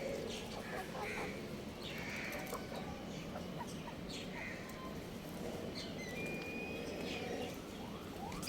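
Birds calling: short calls about once a second, then a few thin, high chirps in the second half, over a steady background hum.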